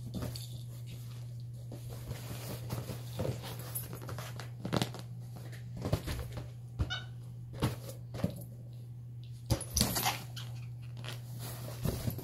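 A capuchin monkey handling rubber balloons on a rug: scattered knocks and rubbing as the balloons are grabbed and bumped, with a brief high squeak about seven seconds in, over a steady low hum.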